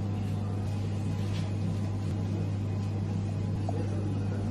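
A steady low electrical or machine hum at an even level, with no strokes or breaks in it.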